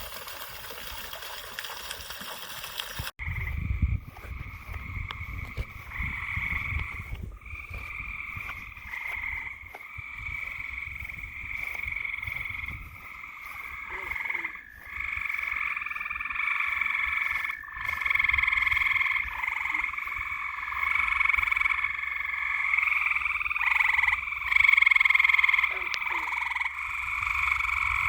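An even hiss stops abruptly about three seconds in, and a dense chorus of many frogs calling at once takes over and carries on without a break.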